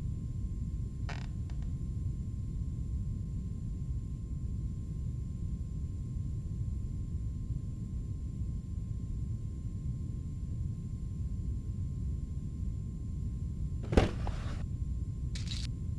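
Steady low rumble of background noise with a faint thin hum. Near the end, a sharp click as the mirrored medicine cabinet door is pulled open, followed by a lighter tick.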